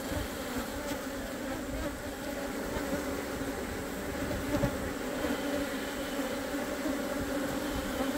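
A large number of Korean native honeybees (Asian honeybees) buzzing around an opened hive box, a dense steady hum; the disturbed colony is defensive and stinging.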